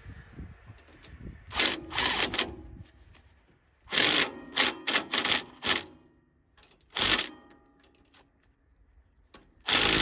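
Cordless impact driver hammering the clutch retaining bolt tight onto the Kohler 7HP engine's crankshaft, run in a series of short bursts with pauses between them as the reinstalled sawmill clutch is snugged down.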